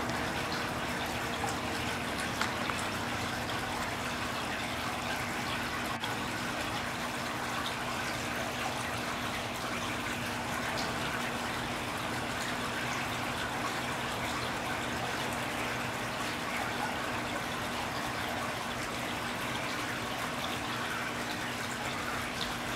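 Wall-mounted waterfall fountain: water flowing steadily down its stone face and splashing into the copper trough at the bottom. A faint steady hum runs beneath the water.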